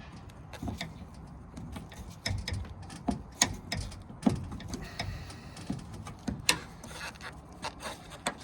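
Irregular clicks and knocks from hands and tools working on furnace parts during reassembly, with a few sharper knocks in the middle of the stretch.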